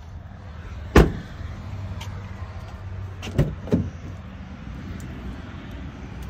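Pickup truck door slammed shut about a second in, the loudest sound, then two lighter knocks a moment apart a little past the middle, over a steady low rumble.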